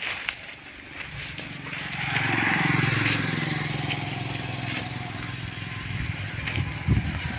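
A vehicle passing on the nearby road: its engine note swells to a peak about two to three seconds in and falls in pitch as it goes by. A few low thumps near the end.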